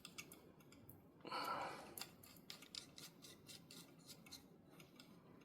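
Faint small metallic clicks from a screwdriver tightening a screw in a revolver's frame, with a short rasping scrape about a second in.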